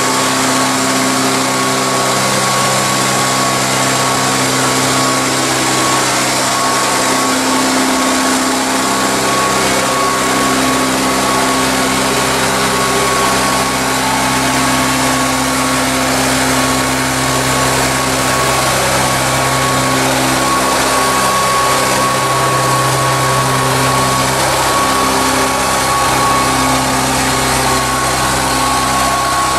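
Tractor engine running steadily at a constant speed, with a steady high-pitched whine.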